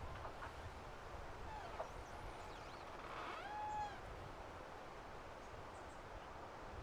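Steady wind and outdoor background noise, with two short animal calls: a brief curved call about one and a half seconds in, then a clearer arched call with overtones that rises, holds and falls about three and a half seconds in.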